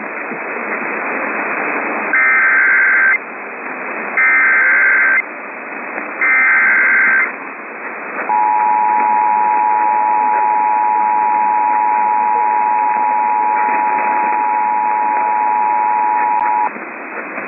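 Emergency Alert System activation heard over a hissy radio broadcast: three one-second bursts of warbling SAME header data about a second apart, then the two-tone EAS attention signal held steady for about eight seconds before it cuts off.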